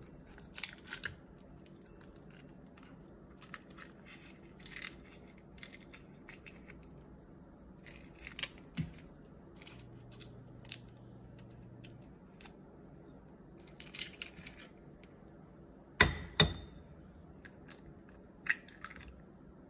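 Eggs being cracked and their shells pulled apart over a glass bowl, with scattered light clicks and crackles of shell and wooden chopsticks against the glass. Two sharp knocks near the end, the loudest sounds, as a shell is struck against the bowl.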